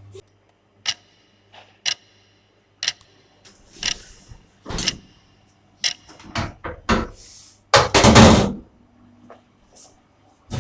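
A series of sharp knocks about once a second, then quicker knocks and a loud noisy clatter lasting under a second about eight seconds in.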